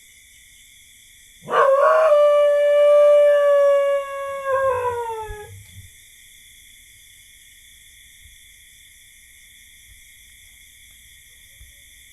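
A dog howling: one long howl starts about a second and a half in, held at a steady pitch for about three seconds, then tails off in a shorter falling howl. A steady high drone of night insects runs underneath.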